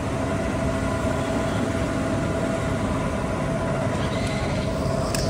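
Petrol pumping from a fuel-station dispenser nozzle into a motorcycle's tank: a steady hum from the dispenser with the rush of flowing fuel, unchanged throughout.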